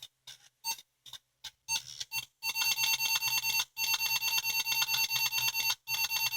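Atari 8-bit computer's disk-loading beeps while it boots from an Atari 1050 disk drive. A few separate clicks and short beeps come first, then a rapid, buzzing pulsed beep runs in three long stretches with brief breaks. The beeps are the sound of data coming off the disk, a sign the drive is reading and the system is loading DOS.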